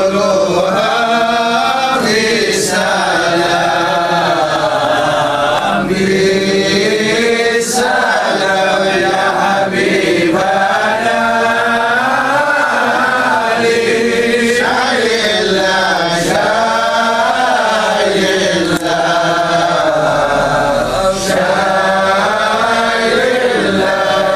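Men chanting a devotional Arabic maulid recitation, one continuous winding melody.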